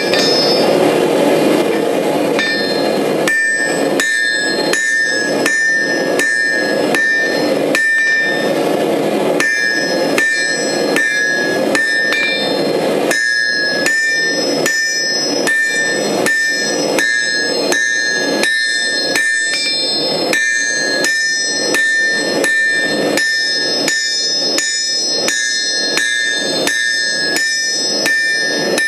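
Hand hammer forging a red-hot steel bar into a graver blank on a small steel anvil. A steady, even run of blows, with a bright high ring from the anvil carrying on between strikes.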